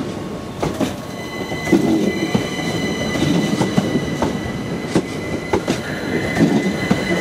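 Southern Class 377 Electrostar electric multiple unit rolling slowly along a curved platform: a low rumble with irregular wheel clicks over rail joints. A steady high-pitched squeal sets in about a second in.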